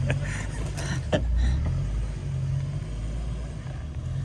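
Jeep engine running at low revs while crawling, a steady low rumble, with one sharp knock about a second in.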